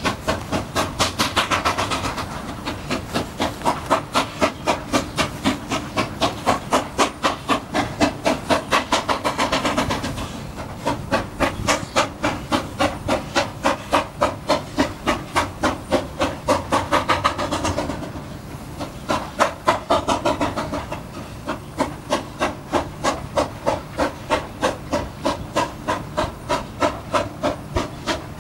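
Steam locomotive pulling away with a train of empty cars, its exhaust chuffing in an even, quick beat of a little over two beats a second, swelling and easing slightly in strength.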